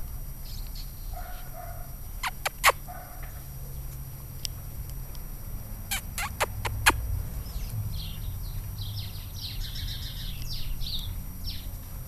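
Birds calling: a short pitched call repeated a few times in the first seconds, then a run of high chirps through the second half. A puppy chews a wooden stick, with a few sharp cracks about two seconds in and again around six seconds.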